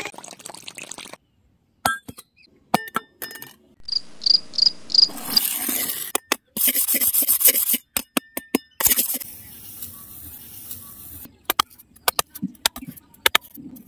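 A metal blade scraping and cutting into damp sand, heard as a string of sharp clicks and scrapes with short pauses. About four seconds in, a quick run of five high chirps.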